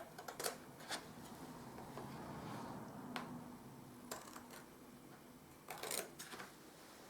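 Scissors snipping through wallpaper in short, separate cuts, with soft paper rustling between the snips.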